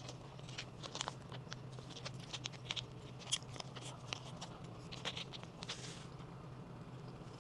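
Irregular crisp crackles and crunches from a dried fish snack being handled and eaten, over a steady low hum.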